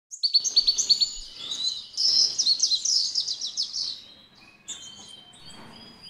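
Bird song: a quick run of sharp, high chirps, then a fast, rippling trill that fades about four seconds in, leaving a few faint chirps.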